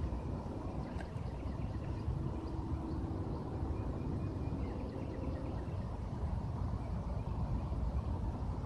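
Outdoor ambience: a steady low rumble with faint, scattered high chirps.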